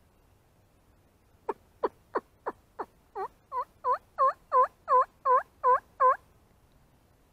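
Turkey calling: five short, sharp notes dropping in pitch, then a run of about nine yelps, roughly three a second, that grow steadily louder.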